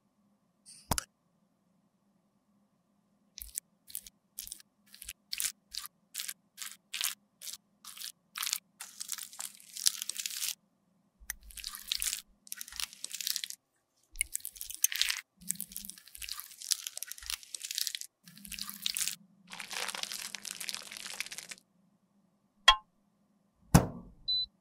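Makeup being crushed and scraped by hand with close-miked crunching. It starts as a run of separate sharp crunches about two a second, then turns into longer spells of scratchy scraping, with two sharp knocks near the end.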